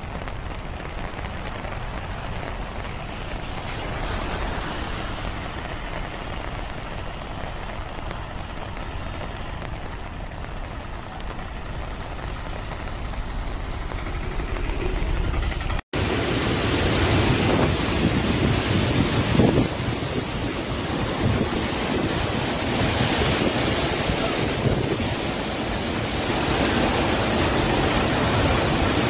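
Steady rushing of heavy rain and distant waterfalls. After an abrupt cut about halfway through, a louder, deeper rush of muddy floodwater tumbling down a hillside.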